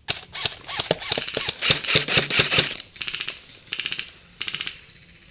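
Airsoft guns firing: a string of sharp single shots, then three short rapid full-auto bursts near the end.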